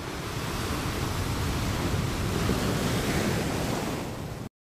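Ocean waves washing on a shore, a steady rushing surf that swells a little in the middle and cuts off suddenly near the end.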